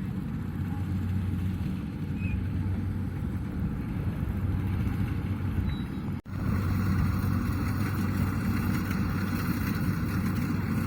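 Kubota DC-70 combine harvester's diesel engine running steadily while harvesting rice, a low, even drone. The sound cuts out for a split second about six seconds in and comes back with more hiss in the upper range.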